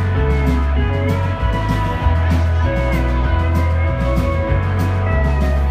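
Live country-rock band playing an instrumental break with no vocals: acoustic guitars over changing bass notes and a steady beat.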